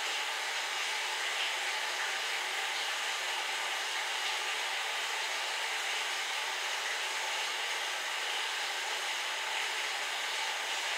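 Electric fan running: a steady, even rushing hiss with no breaks, clicks or crunches.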